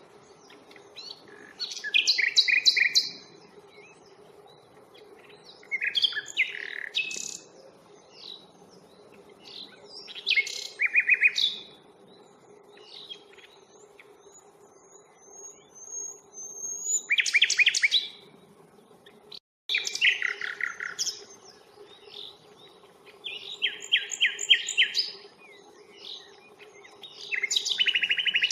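Common nightingale singing: loud separate phrases a few seconds apart, many made of rapid repeated notes, with a run of thin rising whistles about halfway through. A faint steady low hum lies underneath.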